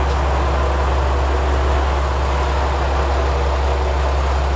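Ibara Railway IRT355 diesel railcar idling, a steady low engine hum.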